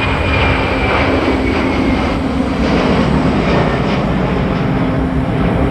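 Airbus A330-300 jet engines at takeoff thrust: a loud, steady engine noise with a high whine that falls slightly in pitch over the first two seconds.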